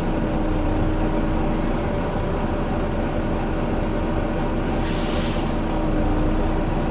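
Volvo Wright Eclipse Gemini double-decker bus running, a steady hoover-like whine over the engine noise. A short hiss of air comes about five seconds in.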